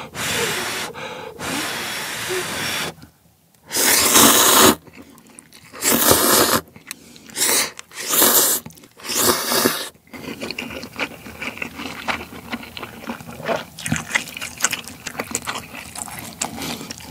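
A person slurping hot instant ramen noodles in a series of loud, noisy pulls, one long and several shorter. They are followed by wet chewing with many small clicking mouth sounds.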